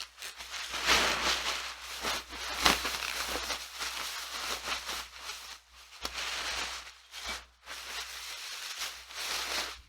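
Plastic bag crinkling and tearing as a bag of used clothing is opened and rummaged through, in a run of irregular rustles and sharp crackles with a few short pauses.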